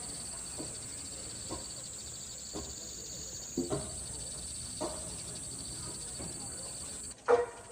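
Steady high-pitched drone of crickets or other insects, with a few brief, faint chirps spaced about a second apart and a louder call near the end.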